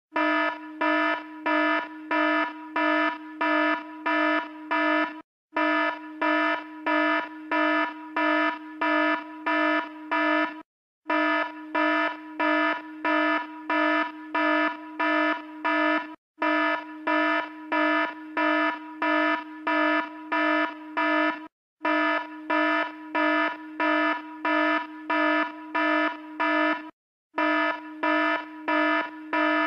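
Alarm sound effect: a buzzy tone pulsing about twice a second, in runs of about five seconds broken by brief silent gaps.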